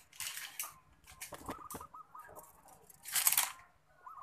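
A steel tape measure's blade pulled out and let back in: two short rasping bursts, one near the start and a louder one about three seconds in, with a few clicks between. A bird calls in the background, a short run of quick notes.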